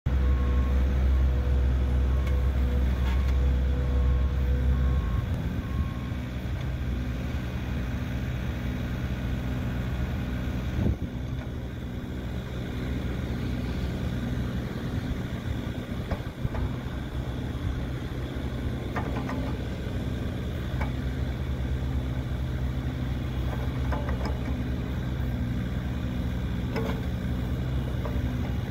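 Yanmar B2-5 mini excavator's 1.1 L three-cylinder diesel engine running steadily while the hydraulic boom and bucket are worked. The low engine hum drops about five seconds in, and a few sharp knocks come later.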